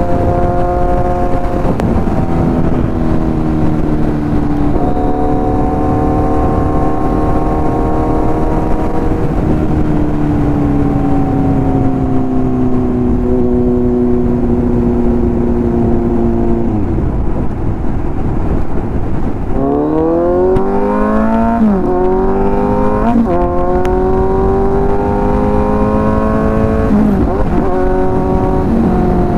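Kawasaki Z900's inline-four engine through an aftermarket exhaust under way: it cruises with its pitch drifting and dropping at a few gear changes. About two-thirds of the way through it accelerates hard through quick upshifts, the revs climbing and falling back at each shift, over a constant rush of wind and road noise.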